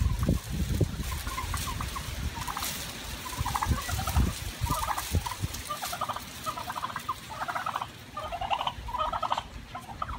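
Domestic turkeys gobbling again and again as they squabble: about ten short, rattling gobbles, with a few low thumps in the first half.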